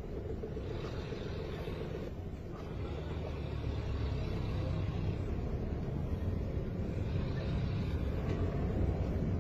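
Car engine and road noise heard from inside the cabin while driving through town traffic: a steady low rumble that grows a little louder about a third of the way in.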